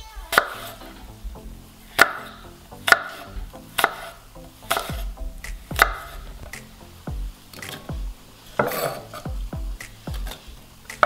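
Kitchen knife chopping apple on a wooden cutting board: sharp knocks at an uneven pace, about one a second. Near the end, apple cubes are dropped into a stainless steel saucepan.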